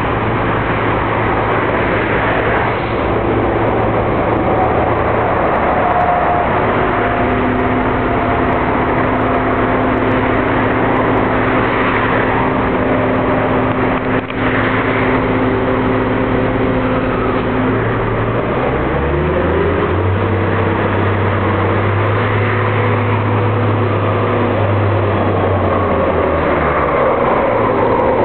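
Heavy crane engine running steadily under load, its note changing about eighteen seconds in.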